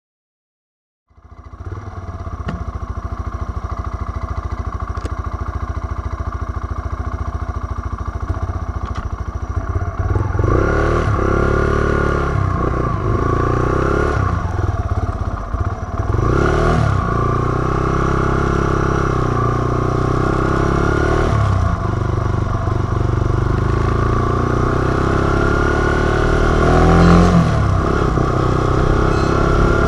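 Yamaha TW 125's single-cylinder four-stroke engine, breathing through an aftermarket Akrapovic exhaust, heard from a camera on the bike. It runs steadily at first, then from about ten seconds in revs up and drops back again and again as it is ridden through the gears.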